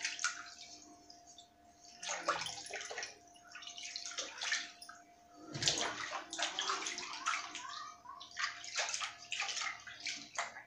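Hands splashing and swishing water in irregular bursts while scrubbing and rinsing a small brass item in a basin, with the loudest splash about halfway through.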